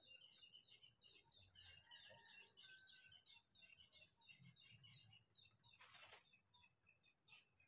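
Near silence, with faint, rapid high chirping and a short rustle about six seconds in.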